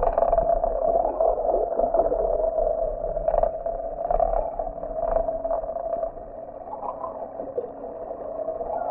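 Muffled underwater recording of a boat's engine: a steady droning hum carried through the water, with a few soft knocks about a second apart midway through.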